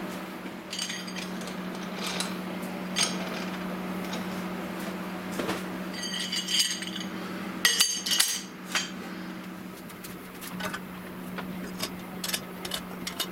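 Steel lathe tooling (live centres, a drill chuck, taper sleeves) clinking and knocking as it is handled and set down on a metal tool rack and the lathe headstock. The clinks come scattered, some with a short metallic ring, the loudest cluster about eight seconds in, over a steady low hum.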